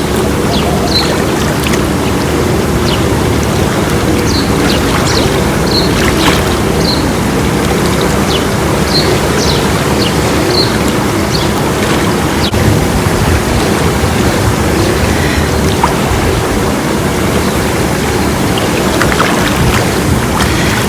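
Steady rush of water in a swimming pool. Short high bird chirps come about once a second through the first half.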